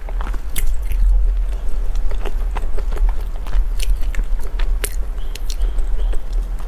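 Close-miked chewing and mouth sounds of a person eating, a scattering of short wet clicks and crackles over a steady low hum.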